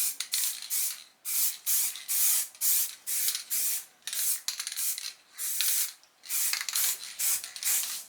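Satin black spray paint hissing in short, rapid bursts, about three a second, as a light dusting guide coat goes onto a primed car body panel to show how much it needs rubbing down.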